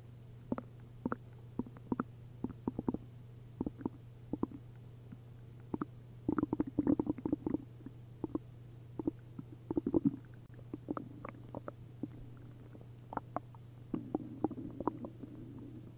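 Upset stomach and intestines gurgling, full of liquid after a liter each of milk and prune juice. Scattered short pops and squelches give way to thick stretches of liquid bubbling about six seconds in, again around ten seconds, and through the last two seconds.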